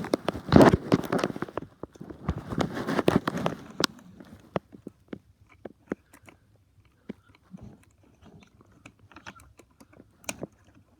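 Plastic crunching and crackling with sharp clicks as a toy train's speaker and push button are pried loose from its plastic housing. It is dense for about the first four seconds, then thins to scattered clicks and taps.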